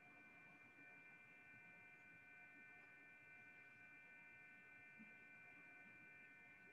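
Near silence with a faint, steady electrical hum made of several high held tones that do not change.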